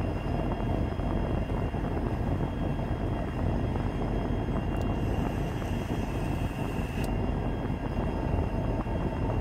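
Diesel engine of Union Pacific 4350, an EMD SD70M road locomotive, running with a steady low rumble as it rolls slowly past at the head of a train, with a thin steady high whine over it.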